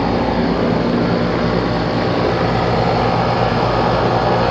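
Outdoor residential air-conditioning condensing unit running: a steady low compressor hum under the even rush of the condenser fan.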